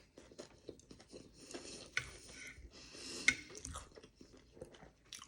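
A person chewing and biting food close to the microphone, with crunching and small wet clicks, including two longer crunchy stretches in the middle.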